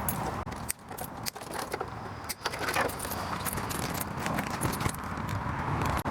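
Light clinking and rattling of small hard pieces being handled and pulled loose, with scattered sharp clicks: decorations being stripped off the truck.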